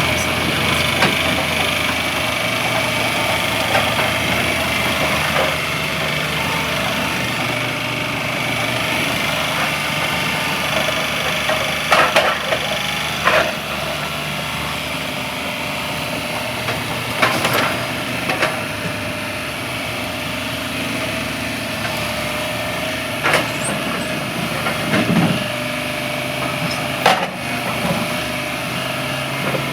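Ditch Witch SK1550 mini skid steer's engine running steadily, with a few sharp knocks scattered through, about six in all.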